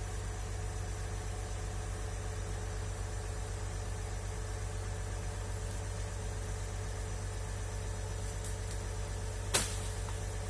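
Excavator's diesel engine running at a steady idle with a low, even drone. A single sharp click sounds about nine and a half seconds in.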